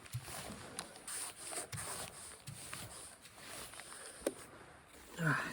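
Faint rustling with scattered small clicks and knocks.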